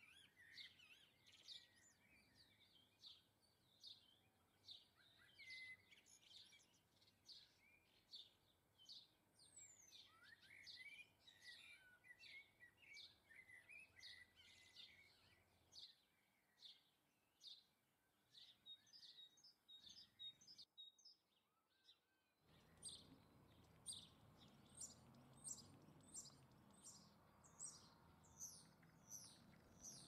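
Small garden birds chirping: a faint, busy run of short, high chirps and twitters, which breaks off briefly about 21 seconds in and then carries on over a little more background noise.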